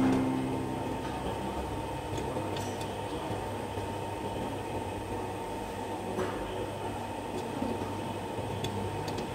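Music fading out, then a steady low mechanical hum with a couple of faint clicks.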